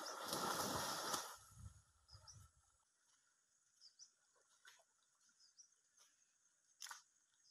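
Water splashing hard as a deer struggles in a shallow waterhole in a Komodo dragon's grip, stopping about a second in. After that, only a few soft splashes, faint high chirps and a couple of sharp clicks.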